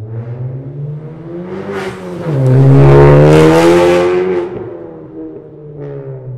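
Honda Civic Type R's turbocharged 2.0-litre four-cylinder, breathing through an ARK Performance DT-S cat-back exhaust with a catless downpipe, accelerating hard in a drive-by. The exhaust note climbs in pitch and grows loud at the middle, then fades, with a brief second rise near the end.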